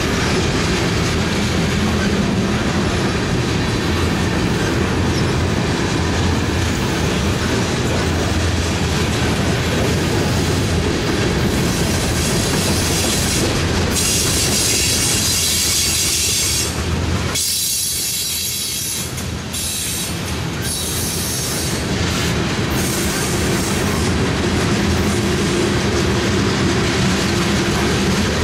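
Freight cars of a mixed train rolling past close by: steady rumble and clatter of steel wheels on the rails. A high wheel squeal rises for a few seconds about halfway through.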